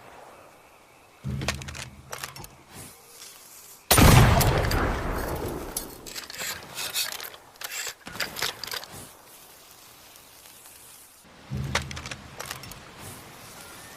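Tanegashima matchlock gun firing once about four seconds in, a loud shot that rings out for several seconds. Clicks and a low rumble come about a second in and again near the end.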